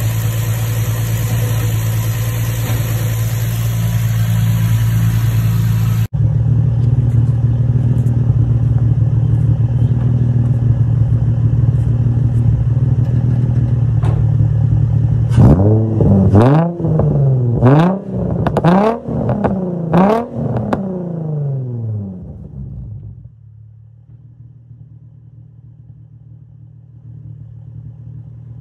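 Infiniti G35's VQ35 3.5-litre V6 idling on its first start with an aftermarket Kinetix intake manifold and no tune, then revved in about five quick throttle blips that rise and fall before it settles back to a quieter idle.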